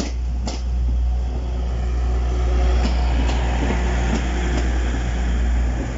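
Class 185 diesel multiple unit passing close by: a steady low engine and running rumble, with sharp wheel clicks in pairs about half a second apart as the wheelsets cross the rail joints.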